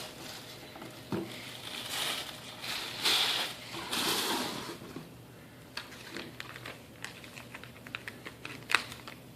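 Packaging rustling and crinkling as items are pulled out of a box, in a few swells over the first half, then a run of light clicks and taps with one sharper click near the end.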